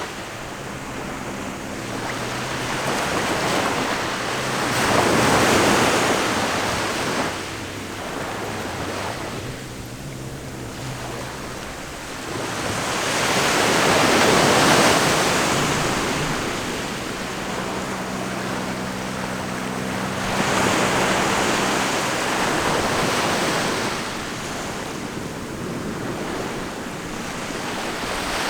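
Ocean surf: waves breaking and washing ashore, the rush swelling and easing in slow surges, about three big swells over the half minute.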